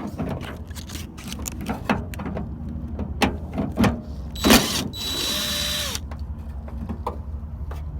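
A 10 mm socket wrench working the door handle bolts loose inside a car door: scattered clicks and knocks, with a loud knock about four and a half seconds in, then a steady whir lasting about a second.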